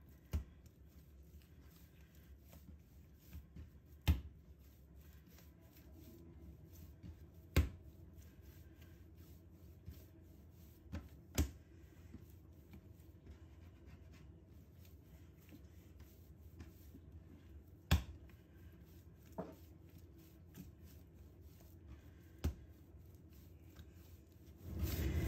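Dough being kneaded by hand, quiet, with a sharp slap or clack of the dough about every three to four seconds; louder rubbing and handling comes in near the end.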